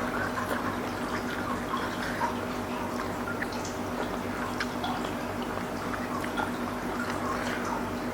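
Close-up mouth sounds of eating seblak: wet chewing with many small clicks and smacks. Under them runs a steady low hum.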